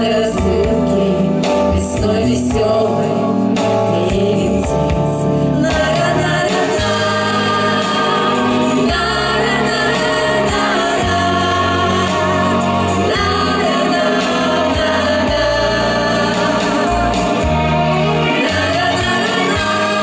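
Female vocal group of four singing a song together in harmony into microphones, amplified through a PA.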